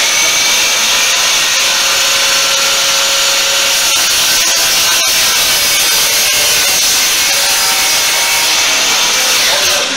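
DeWalt chop saw (miter saw) running and cutting through wood: a loud, steady high-pitched saw noise that starts to die away right at the end.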